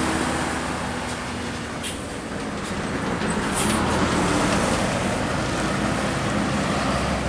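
Passing road traffic on a hill road: a large tour coach's diesel engine and tyres as it goes by close and pulls away, with motorcycles alongside. Two brief high hisses come about two and three and a half seconds in.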